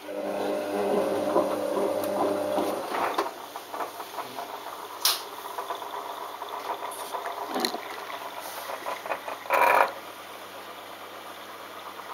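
Balay T-8295 washing machine in its delicate rinse: the drum motor hums for about three seconds as it turns the drum, then water sloshes with small clicks and knocks, and there is a brief louder rush near the end.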